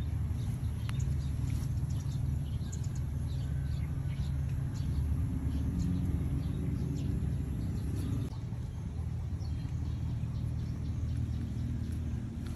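Steady low engine rumble from a motor out of sight, easing a little about eight seconds in, with faint bird chirps above it.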